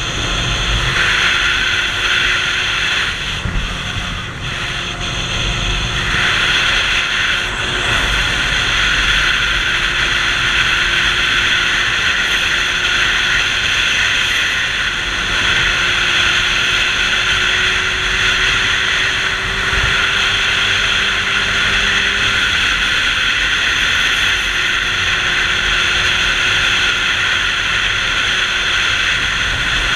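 Wind rushing over the camera microphone on a moving sport motorcycle, with the engine's steady hum underneath. The engine note climbs slowly for a few seconds past the middle, and the wind eases briefly a few seconds in.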